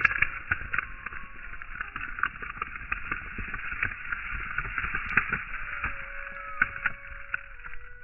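Hissy, crackling outdoor background noise with a few faint gull calls. One call is drawn out for over a second late on and drops in pitch at its end.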